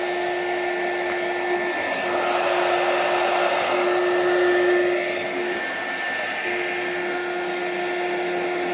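An electric hot-air blower runs steadily, its fan motor making a constant rushing hum with a steady tone that wavers and drops out briefly twice.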